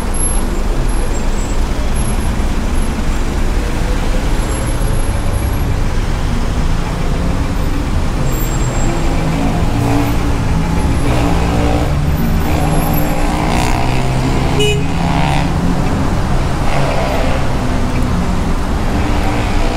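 Busy city street traffic: cars and heavier vehicles running past in a steady low rumble, with more engine sound for a few seconds from about halfway through.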